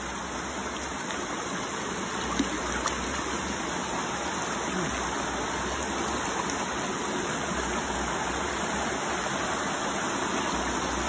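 Shallow river running over rocks and stones: a steady rush of water.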